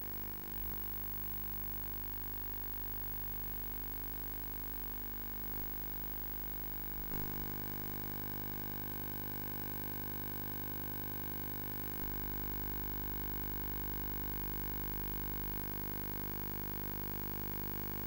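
Steady electrical hum and hiss with a few faint clicks, the noise of a soundtrack with no recorded sound on it. The hum gets a little louder about seven seconds in and again at about twelve seconds.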